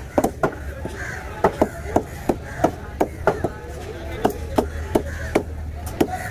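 Large fish-cutting knife chopping a trevally fillet into chunks on a chopping block: sharp, quick chops at an uneven pace of about three a second.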